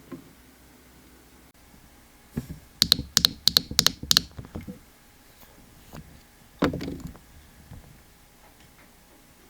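Small hard objects being handled on a tabletop: a quick run of about eight sharp clicks and taps, then a single duller knock a few seconds later.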